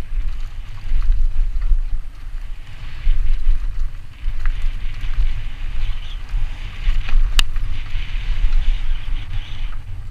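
Wind buffeting the microphone of a helmet camera on a downhill mountain bike, a fluttering low rumble that rises and falls, over the rough hiss of tyres rolling on a dusty dirt trail and the rattle of the bike. There are scattered ticks and one sharp click about seven and a half seconds in.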